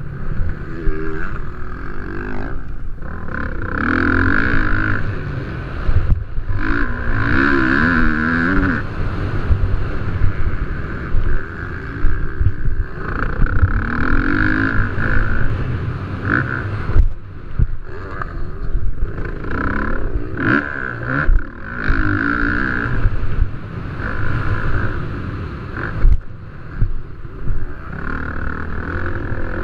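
Motocross dirt bike engines racing, revving up hard and backing off again every few seconds over a rough low rumble.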